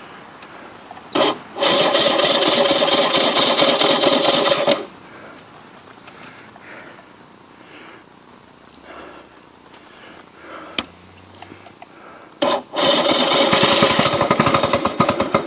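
Electric starter cranking the two-stroke engine of a Lawn-Boy 8241AE mower on a cold start: a short blip about a second in, then about three seconds of cranking, a pause of about eight seconds, and a second spell of cranking near the end.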